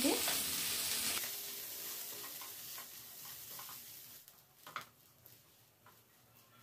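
Mashed potato and spices being stirred with a spoon in hot oil in a nonstick frying pan, sizzling. The sizzle fades over the first few seconds, leaving a few light taps and scrapes of the spoon on the pan.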